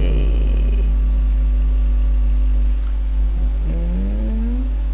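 Steady low electrical hum, dipping slightly a little before three seconds in, with a short rising tone near the end.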